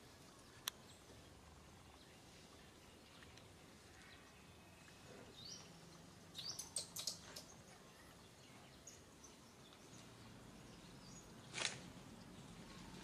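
Quiet outdoor background with a quick run of short, high chirps about halfway through and one brief sharp sound near the end.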